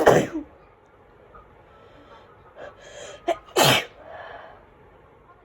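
A person sneezing twice: one sharp sneeze right at the start, then a short build-up and a second loud sneeze about three and a half seconds in.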